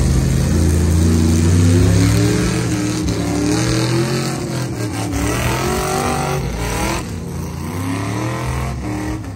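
Truck engines revving hard under load in a tug-of-war pull, their pitch rising and falling, getting quieter toward the end.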